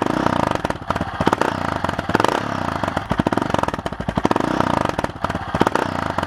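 Honda XR650R's big single-cylinder four-stroke engine through an FMF aftermarket muffler, revved repeatedly, the pitch rising and falling back about once a second.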